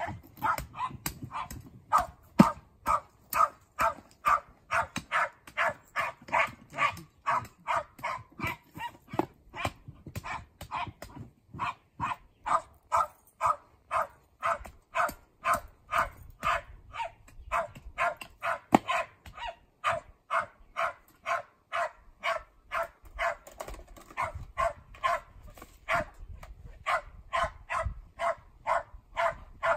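Cairn terrier barking steadily and without let-up, about two barks a second, the sustained barking of a terrier working its quarry in an earthdog den.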